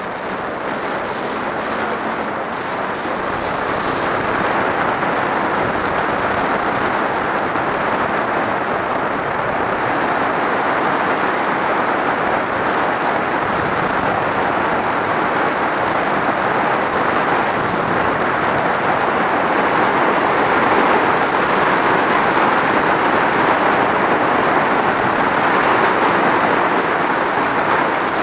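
Steady rush of wind noise over a helmet-mounted camera microphone on a motorcycle at road speed, building over the first few seconds as the bike speeds up, with the engine buried under it.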